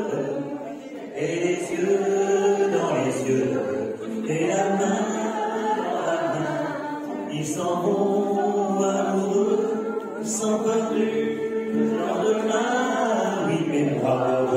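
A man singing a slow song through a microphone with acoustic guitar accompaniment, in long held phrases with short breaks between them.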